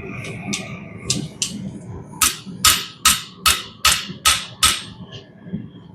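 Hammer blows on a heated steel file being flattened: a few light taps, then a steady run of about seven sharp, ringing strikes, roughly two and a half a second, that stop about five seconds in.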